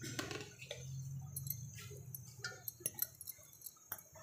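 Scattered light clicks and clinks as chopped potato, onion and spinach are mixed in a metal bowl, the sharpest near the end. A low steady hum fades out about halfway through.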